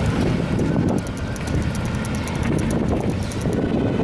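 Wind buffeting the microphone over a low rumble of street traffic and motorbikes. A fast, even ticking runs through the middle and stops shortly before the end.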